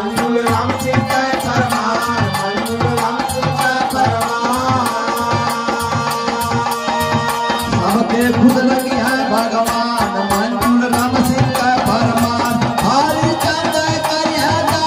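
Live Indian folk music: harmonium melody over a steady hand-drum rhythm.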